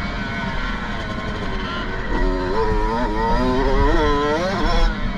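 Kawasaki KX65's two-stroke single-cylinder engine revving hard while riding, its pitch climbing and dropping again several times as it accelerates and shifts.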